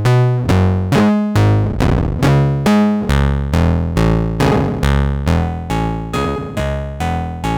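Make Noise 0-Coast synthesizer playing a sequenced line of short pitched notes, a little over two a second, each starting sharply and fading. Its Slope section is synced to the oscillator's square wave, with the end-of-cycle output patched into the balance input to give square-wave tones of adjustable pulse width; the tone grows buzzier about three seconds in.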